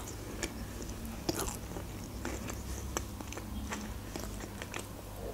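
Close-miked chewing of a mouthful of burger, with irregular soft clicks and smacks of the mouth.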